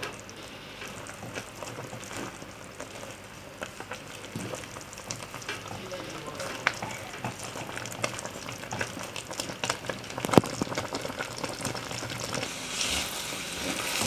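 A spoon stirring and scraping thick, lumpy flour dough in a hot pot on the stove, with a sizzle from the cooking mixture, as the flour cooks into a binding dough. There are irregular small scrapes and clicks, and one sharper knock about ten seconds in.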